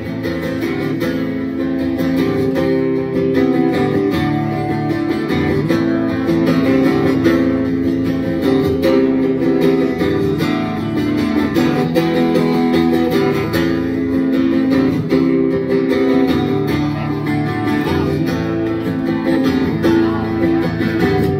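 Acoustic guitar strummed steadily with no singing, the same chord pattern repeating every few seconds.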